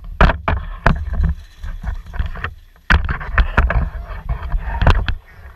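Camera handling noise: irregular knocks and scrapes over a low rumble as the camera is shifted against a chain-link fence. The sound eases briefly in the middle, then picks up again.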